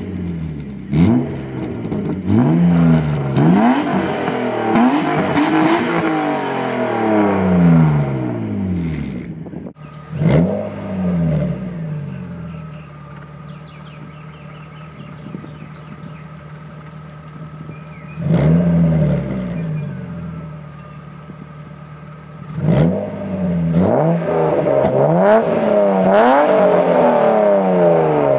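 BMW S52 3.2-litre straight-six, swapped into an E36, being free-revved in short blips through its exhaust, first on stock headers. About ten seconds in the sound cuts to the same engine on TMS replica shorty headers: it idles steadily between single blips, then revs repeatedly near the end.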